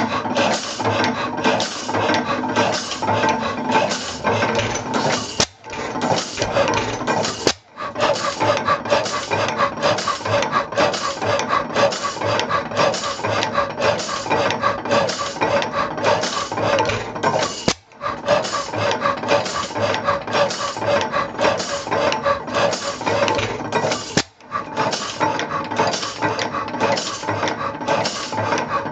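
1898 Deutz H4.3 petroleum (kerosene) stationary engine running, its valve gear and linkages clattering in a quick, steady rhythm, broken by four brief gaps.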